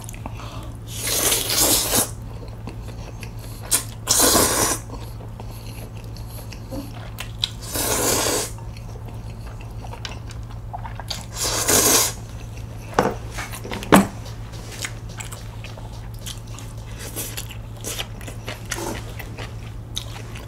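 Jjajangmyeon noodles in black bean sauce slurped up in four long slurps a few seconds apart, with chewing and a few short clicks after the last one, over a steady low hum.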